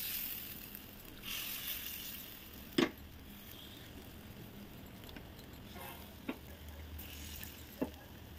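Spoonfuls of pea-and-semolina batter dropped into hot oil in an appe pan, each one sizzling briefly, with a few sharp clicks of the metal spoon against the pan, the loudest about three seconds in.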